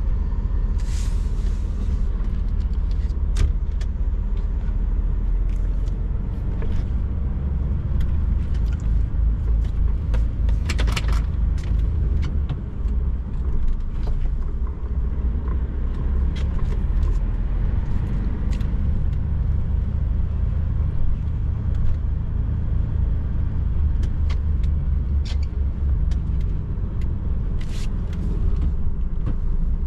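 DAF XF truck heard from the cab: a steady low engine and road rumble, with scattered small clicks and rattles.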